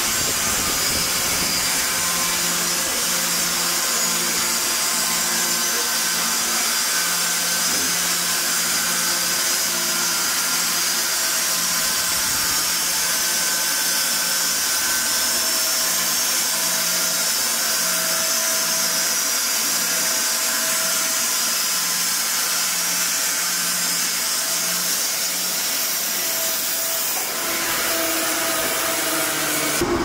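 Triumph 900 Premium horizontal band sawmill running, its band blade sawing through a log as the saw head travels along the rail: a steady loud hiss over a constant machine hum.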